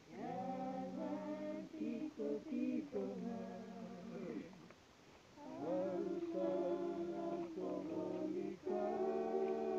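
Women singing unaccompanied in two long phrases, with a short break about halfway.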